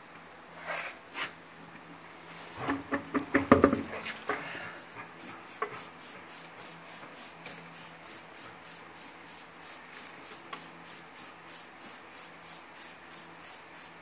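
A short burst of knocks and rubbing as the tire is handled, then a trigger spray bottle squirting soapy water over the wheel's bead about three times a second, a leak test to find where the flat tire is losing air.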